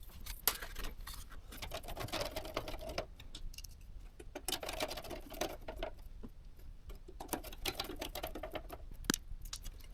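Computer hardware being handled by hand during a PC build: many small clicks and rattles of plastic and metal parts, with stretches of scraping, and one sharper click a little after nine seconds.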